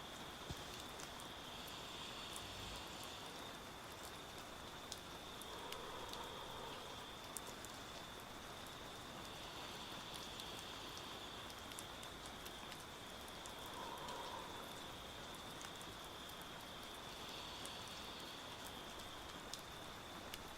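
Steady rain with small pattering drops, and a man's slow, deep breaths swelling and fading, about one every four seconds.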